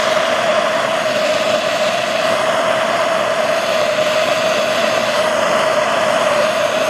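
A Bernzomatic TS-8000 propane torch burning at full flame: a loud, steady rushing hiss with a constant tone running through it. The flame is turned up to bring the aluminum pipe back up to brazing temperature.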